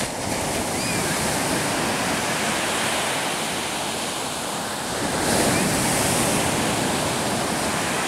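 Sea surf breaking on the shore: a continuous rush of waves and foam that cuts in abruptly at the start and swells louder about five seconds in.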